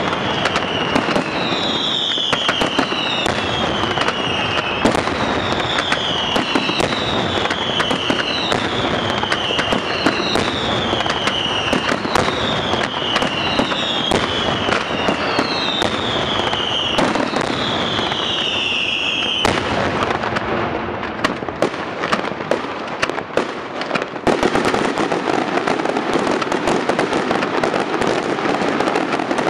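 Daytime fireworks: a steady barrage of firecracker bangs and crackling, with a falling whistle about every second and a half for the first two-thirds. The whistles then stop, the bangs thin out briefly, and the crackling comes back denser near the end.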